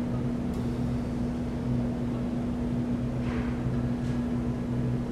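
Steady low background hum, with a faint click about half a second in and a soft rustle a little after three seconds.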